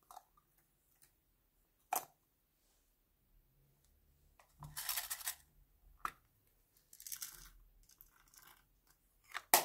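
Small plastic makeup packaging being handled: sharp plastic clicks about two seconds in, near six seconds and loudest near the end, with short rustling sounds in between.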